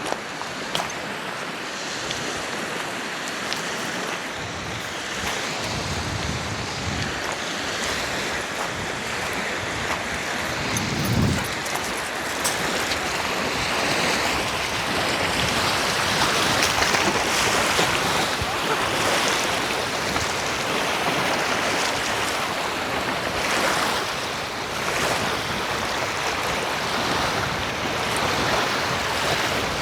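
Wind-driven lake waves washing onto the shore, with gusts of wind buffeting the microphone as low rumbles about 6 and 11 seconds in. The wash grows louder about halfway through.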